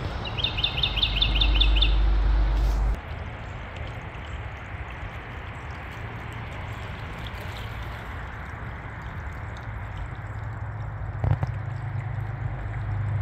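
A bird chirping a quick run of about nine high notes in under two seconds, over a steady outdoor hiss. A low rumble under it cuts off suddenly about three seconds in, and there is a single click near the end.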